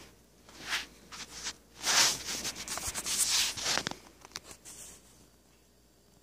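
A run of irregular rustling and rubbing noises, loudest about two to four seconds in, then dying away about five seconds in.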